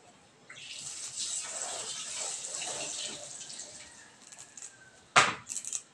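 Water running from a kitchen tap into the sink for about four seconds, then a sharp knock a little after five seconds in, followed by a few small clicks.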